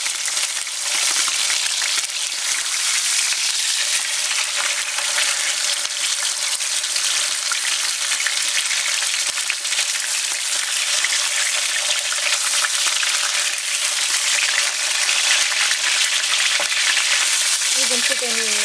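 Two chunks of deer leg meat searing in very hot oil, a steady sizzle of frying.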